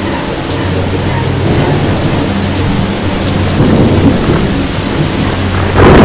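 Thunderstorm sound effect: steady heavy rain with low thunder, then a sudden loud thunderclap breaks in right at the end as lightning strikes.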